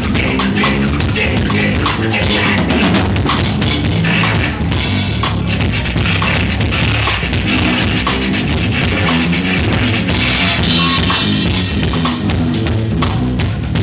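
A live rock band playing, with the drum kit loudest: a fast, even run of cymbal strokes over kick and snare, and bass and other instruments holding notes underneath. The cymbal wash swells about five seconds in and again around ten to twelve seconds.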